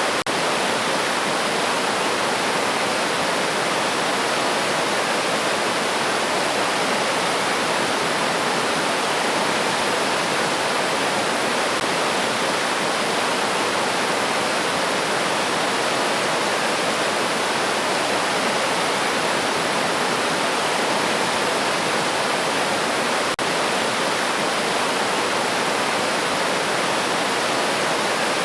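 River water flowing over stones: a steady, even rush of running water with no change in level.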